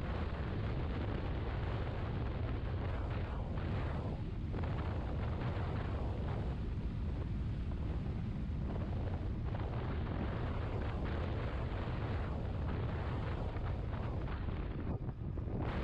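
Wind rushing and buffeting over the camera microphone at road speed on a moving Yamaha XMAX 250 scooter, a steady deep rumble with road and engine noise buried under it. It dips briefly about fifteen seconds in.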